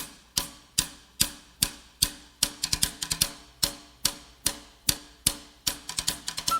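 Intro music: a sharp clicking percussion beat, about two and a half clicks a second with quick rolls in between, over low held notes.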